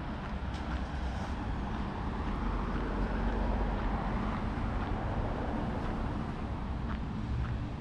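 Street traffic: a car passing on the road, its tyre and engine noise swelling to its loudest a few seconds in and then fading, over a steady low rumble, with a few light footstep ticks.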